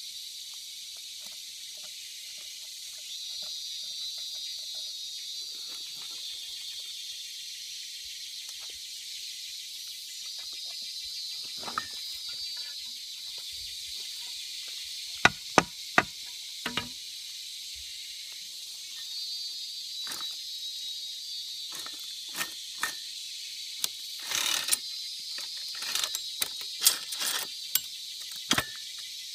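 Steady high insect chorus that swells and fades in waves. From about halfway through it is broken by a scatter of sharp clicks and knocks, closer together near the end. No chainsaw is running.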